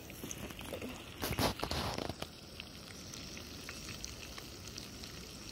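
A whole fish frying in a pan of hot oil: a steady sizzle, with a few knocks in the first couple of seconds.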